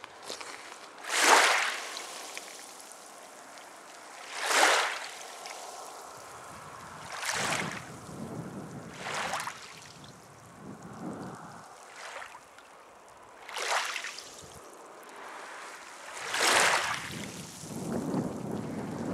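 Small waves washing onto the shore of a calm bay: a short hiss of water every two to four seconds, each swelling and fading, the loudest about a second in.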